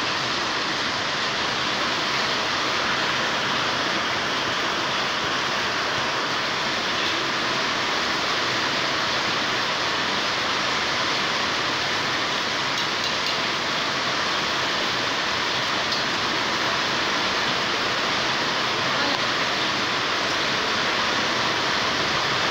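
Heavy rain pouring down onto a waterlogged concrete courtyard, a steady, unbroken hiss that keeps the same level throughout.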